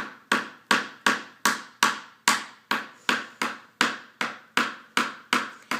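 Hammer driving a nail into a small wooden kit piece, about sixteen steady, evenly spaced strikes at roughly three a second.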